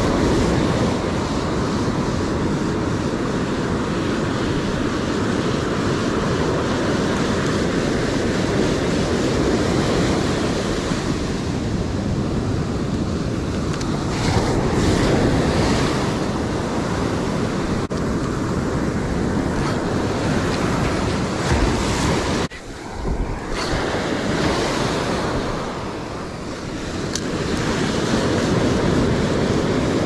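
Heavy ocean surf breaking and washing up the beach, with wind buffeting the microphone.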